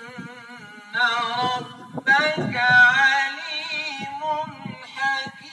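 A man's voice chanting in long, ornamented Arabic phrases from the mosque, in the melodic style of Quran recitation, with steady tones held underneath.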